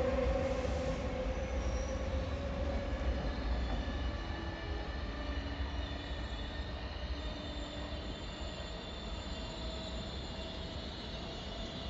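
Regional passenger train running through the station, its rumble fading steadily. Thin high wheel squeal comes in over the second half.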